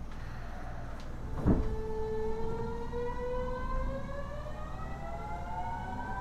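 Kyoto Subway Series 50 train's Mitsubishi GTO-VVVF traction inverter whining as the train accelerates: several tones climbing together steadily in pitch over a low running rumble. A single heavy thump comes about a second and a half in, just as the whine begins.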